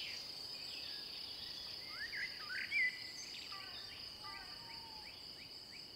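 Evening woodland ambience: a steady high-pitched insect trill, with a few short chirping bird calls, the loudest around the middle.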